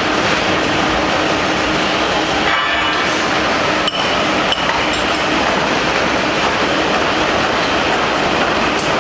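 Steel ball roll-forging production line running: a loud, steady machine din with a few sharp metallic clinks and knocks about four seconds in.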